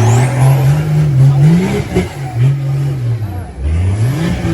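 Off-road 4x4 vehicle's engine revving up and easing off several times, its pitch rising and falling.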